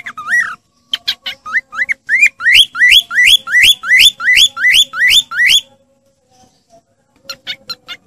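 Cockatiel whistling a fast run of rising notes, about two or three a second, each sweeping upward. It stops for about a second and a half, then starts again with shorter, quicker notes near the end.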